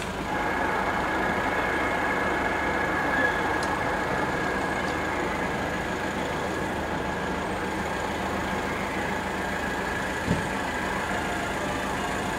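Distant formation of military helicopters (Westland Scouts and a Sioux) with a de Havilland Chipmunk flying past: a steady engine and rotor drone with a high whine over it. A single soft thump about ten seconds in.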